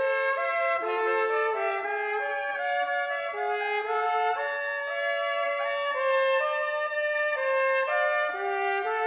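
Two E-flat soprano cornet parts (Kanstul Eb cornet), multitracked by one player, playing a slow duet in harmony. The two lines move from note to note together, each note held about a second or less.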